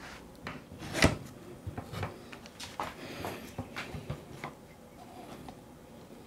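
Wooden mould blocks knocked down and shuffled on a workbench: one sharp knock about a second in, then a run of lighter, irregular clicks and taps.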